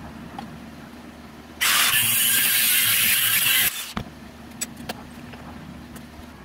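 Angle grinder grinding a small steel piece held in a vise: about two seconds of loud grinding that starts and stops abruptly, then a few light clicks.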